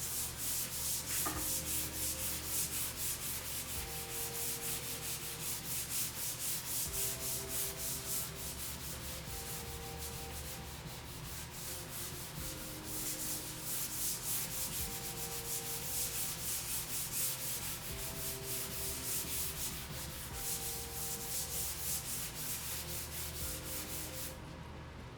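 Hand sanding with a Fulton sanding mouse fitted with a mesh abrasive pad: a steady run of quick back-and-forth scratching strokes, about two a second, that stops about a second before the end.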